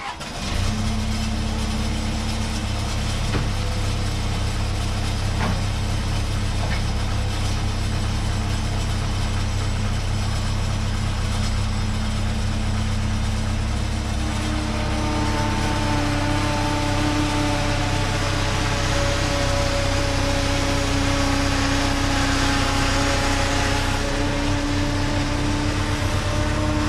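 Skid steer engine running steadily as its loader arms lift a car body, with a higher wavering whine joining about halfway through.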